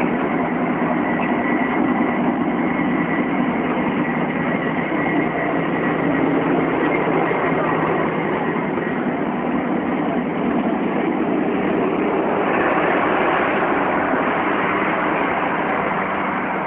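Diesel locomotive's engine running loud and steady while belching thick black smoke from its roof exhausts, the sound growing a little brighter about twelve seconds in.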